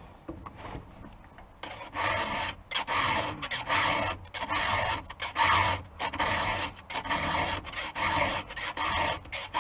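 Round chainsaw file rasping across a chain's cutter tooth in a steady run of push strokes, a little under two a second, starting about a second and a half in. The cutter is dull and is being sharpened.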